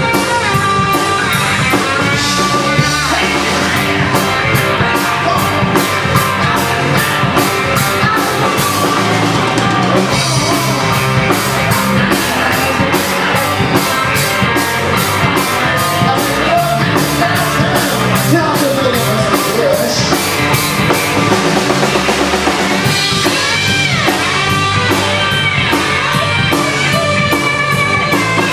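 Live rock band playing: distorted electric guitars, bass and a drum kit with a busy cymbal beat, and a lead guitar bending notes.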